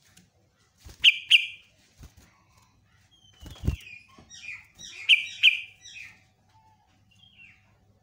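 Yellow-vented bulbul (trucukan) singing in short bursts of loud chirped notes: two sharp notes about a second in, then a longer chattering run between about four and six seconds. A dull low thump comes just before the run.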